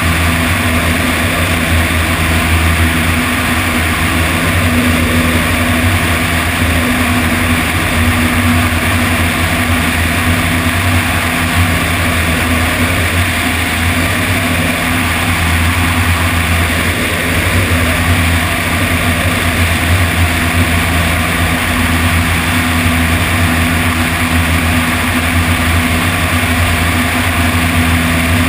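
Piston engine and propeller of a single-engine high-wing light aircraft droning steadily in flight, with heavy wind rush over a microphone mounted outside on the wing.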